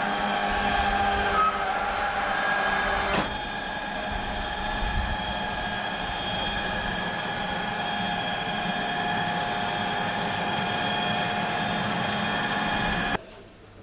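Machinery running with a steady whine of several held tones over a low rumble. There is a sharp click about three seconds in, and the sound cuts off abruptly just before the end.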